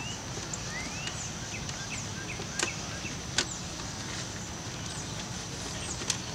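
Birds chirping over a steady outdoor background with a thin high tone, broken by a few sharp clicks of the plastic dash trim panel being pried loose: two around the middle and another near the end.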